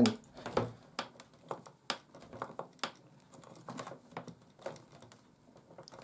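Screwdriver turning a new, stiff screw into the plastic handle housing of a 1997 Hoover Purepower upright vacuum cleaner: irregular clicks, about two a second, as the screw is worked in.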